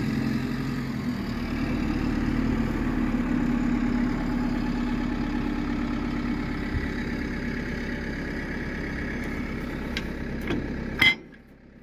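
A diesel engine idling steadily, with a couple of light knocks near the end; the engine sound cuts off sharply about eleven seconds in.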